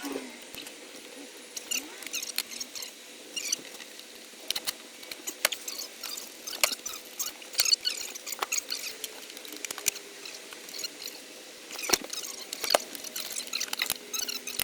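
Scratching, rustling and clicking of hands working on cables and fittings, with a quick irregular run of small clicks and a faint steady hum beneath.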